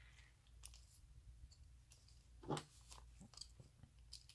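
Faint, scattered clicks and light taps of a plastic slot-car chassis and a small screwdriver being handled, with one louder tap about two and a half seconds in.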